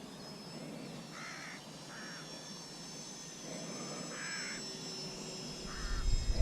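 A bird calling outdoors: four short calls, each under half a second, spread across a few seconds. A low rumble swells near the end.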